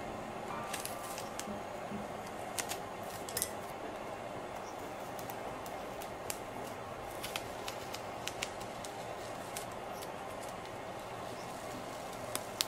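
Hands handling the paper pages of a sketchbook: scattered light clicks and taps of paper and fingers over a steady hiss.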